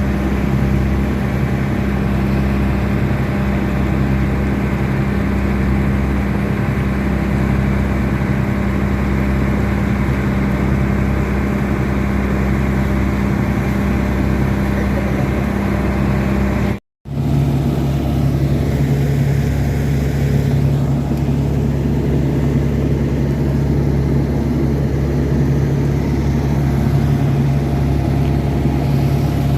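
Bass-heavy music played loud through a large sound system during a sound check, dominated by sustained deep bass notes with a pulsing low beat. The sound cuts out for an instant about halfway through, and the bass note then continues lower.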